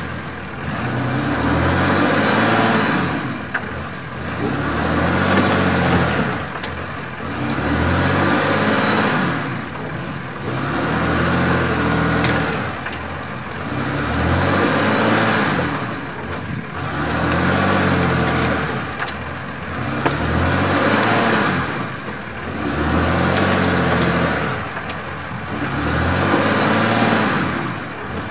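Ram 3500 dually pickup's engine revving up and easing off over and over, about every two and a half seconds, while its rear wheels spin in deep mud: the truck is stuck.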